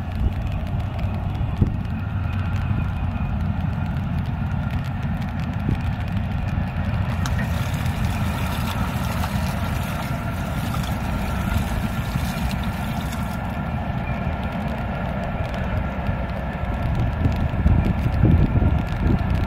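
Wind rumbling on the microphone over a steady faint mechanical hum. Around the middle, water splashes and sloshes as a fishing net is thrown into shallow floodwater.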